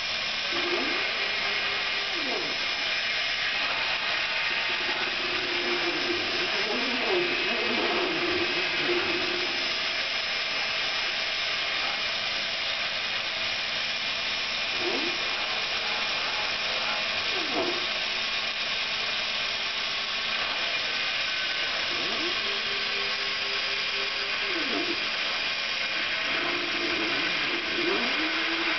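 R3 RepRap Router CNC machine milling fiberboard: the spindle and cutter give a steady high-pitched hiss, while the axis stepper motors whine in tones that rise, hold level and fall again each time the cutter speeds up, traverses and slows.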